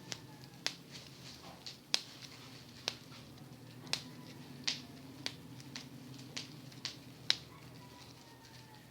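Bubble wrap being popped by hand: a string of sharp single pops at uneven spacing, about one or two a second.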